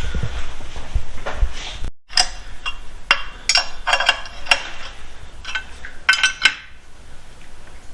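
Metal parts clinking and rattling: a run of sharp, ringing metallic clinks about two seconds in, after a stretch of low rumbling with a few knocks, dying away near the end.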